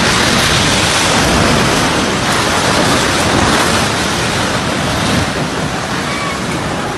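A multi-storey apartment building collapsing after an earthquake: a loud, continuous roar of falling concrete and rubble that eases slightly near the end.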